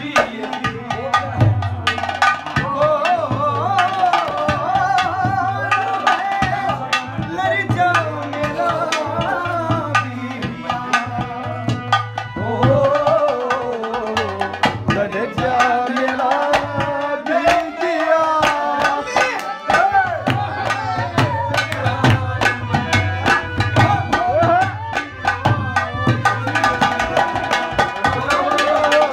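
Live Haryanvi ragni folk music: dholak and nakkara drums beating a fast, dense rhythm under harmonium, with a man singing a wavering melody.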